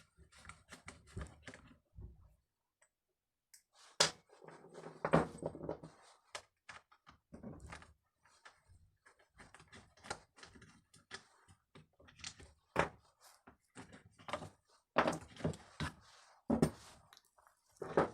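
Irregular clicks, light knocks and rattles of hand tools and small metal and plastic parts on a Stihl MS 181 chainsaw as the fasteners holding its carburetor are undone. There is a short quiet pause about two seconds in, and the loudest knock follows it.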